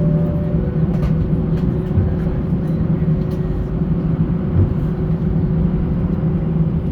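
Airbus A320 cabin noise on the ground: the jet engines running at idle give a steady low drone with an even hum, and a few faint ticks are scattered through it.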